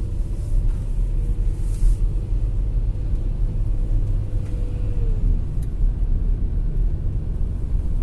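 VW Touareg engine running with a steady low rumble and a thin, steady humming tone over it that fades out about five seconds in. The owner cannot tell whether the hum comes from a belt idler pulley or the power-steering pump.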